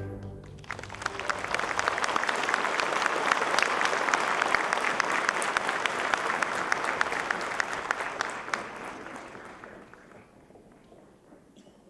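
Audience applauding: the clapping begins just after the ballet music's last note, holds steady for several seconds, then thins out and fades over the last few seconds.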